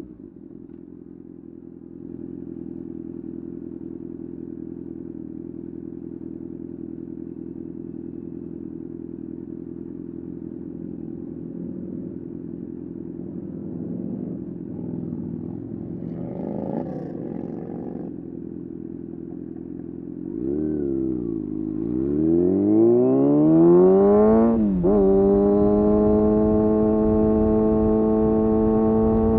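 Kawasaki ZX6R inline-four engine running at steady low revs, then about twenty seconds in it dips briefly and revs up sharply. A quick gear change cuts the pitch near the end, after which it holds a steady, higher-pitched run.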